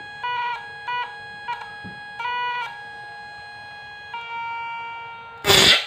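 Home-built electric rat-shocking machine whining under test: a high steady tone with overtones that comes in short bursts, then holds steady at a shifted pitch from about four seconds in. Near the end comes a brief, loud crackle of a high-voltage spark at the output lead.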